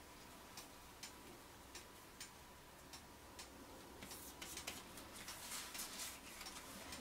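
Faint, irregular ticks and clicks over quiet room tone, coming more often in the last few seconds.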